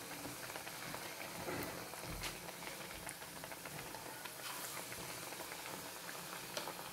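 Gram-flour-battered potato slices deep-frying in hot oil in an iron kadhai: a steady sizzle with many small crackles.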